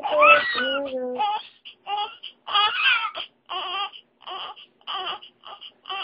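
Three-day-old newborn baby crying in a run of short wavering wails, about one a second, growing shorter and quieter about halfway through.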